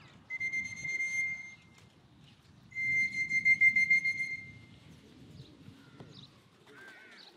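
A shrill whistle sounded twice, each a held steady note, the second longer and louder than the first.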